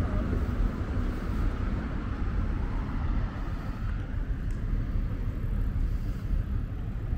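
Outdoor city street ambience: a steady low rumble of road traffic.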